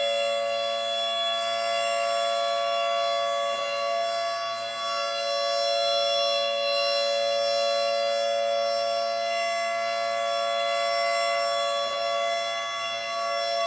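Civil defence air raid siren sounding one long steady tone, rich in overtones, its loudness swelling and dipping slightly.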